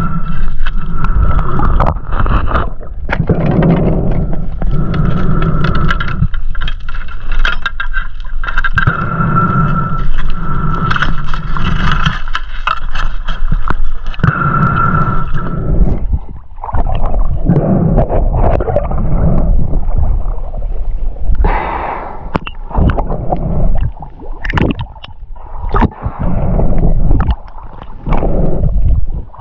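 Muffled underwater sound of water gurgling and rushing past a diver's camera, with many clicks and knocks and a steady whine that stops about halfway through. Near the end the camera breaks the surface and the sound turns to splashing at the waterline.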